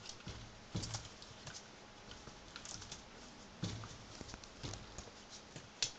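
A ferret's claws scrabbling and pattering irregularly on a wooden floor as it pushes an apple about, with a few louder knocks, about a second in, near the middle and just before the end.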